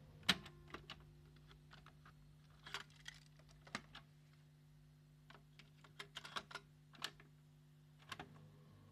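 Sharp mechanical clicks of a Grundig cassette deck's push-button transport keys being pressed and released, in irregular clusters of a dozen or more, over a steady low hum.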